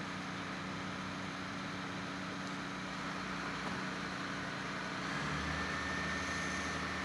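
A vehicle engine idling steadily. Its low rumble grows a little louder about five seconds in, and a faint high steady whine joins it.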